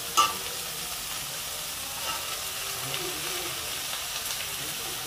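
Chopped carrots, onion and green chillies frying in hot oil in a metal kadai: a steady sizzle, after a short louder burst right at the start.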